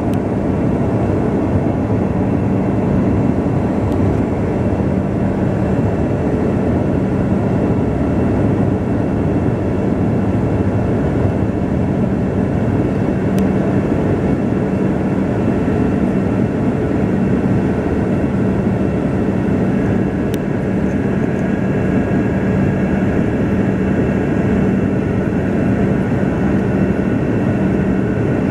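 Airliner cabin noise in flight: a steady rush of engine and airflow noise with a constant low hum.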